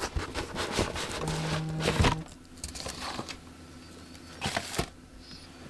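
Plastic model-kit parts and packaging being handled: a run of clicks, light rattles and crinkling, loudest about two seconds in.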